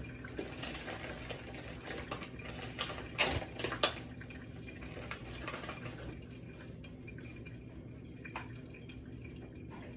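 Light clicks and rustling of hands handling sliced salami and its packaging while laying it on sandwiches, busiest in the first half with a few sharper clicks about three to four seconds in, then only scattered ticks over a steady low hum.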